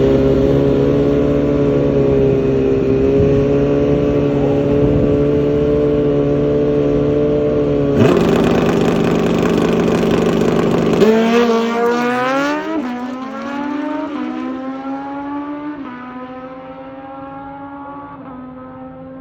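Suzuki Hayabusa drag bike's four-cylinder engine held at steady high revs, then a sudden louder burst about eight seconds in. From about eleven seconds the revs climb and drop back several times through the upshifts, fading as the bike pulls away down the strip.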